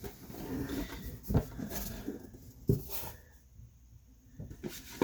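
A cardboard kit box and its contents being opened and handled: rustling with two sharp knocks, a brief quieter stretch, then a few light clicks near the end.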